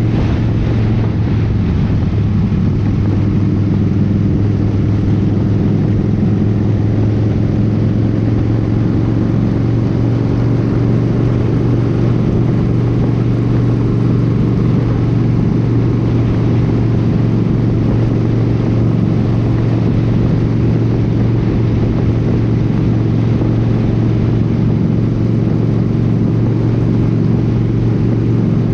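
Motorcycle engine running steadily at highway cruising speed, a constant low drone mixed with wind and road noise.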